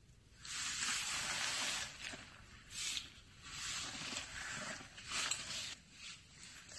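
Nylon tent fabric rustling and swishing as a tent is pitched in snow, in several uneven bursts: a long one about half a second in, then shorter ones every second or so.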